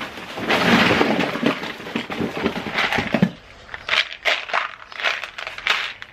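A hand rummaging through loose small cardboard boxes and plastic bottles in a cardboard pallet box, with packaging rustling and crinkling for about three seconds, then a few separate clicks and taps as items knock together.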